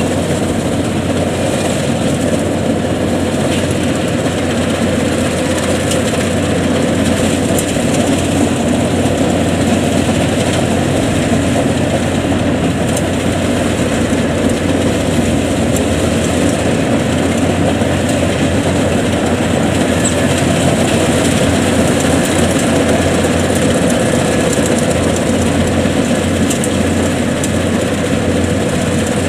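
Yanmar 82 rice combine harvester running steadily and loud as it harvests, its diesel engine and threshing machinery working while it crawls through very soft, sticky paddy mud.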